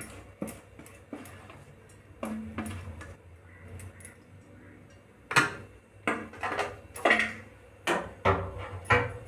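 Stainless-steel kitchenware clinking and knocking: a few light clicks, then about seven sharp metallic knocks with a short ring in the second half, as a steel plate and bowl are handled and tapped together.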